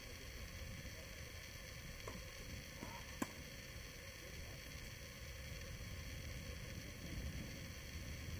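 Steady hiss and low rumble of background noise picked up without an external microphone, with one sharp click a little over three seconds in and two fainter ones shortly before it.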